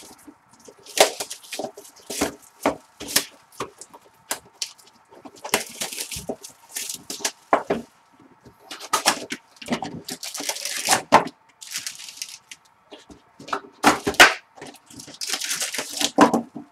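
2016 Panini Prizm football card packs being opened and the cards handled: crinkling, tearing wrappers and a quick run of sharp card clicks and snaps, with longer rustles now and then.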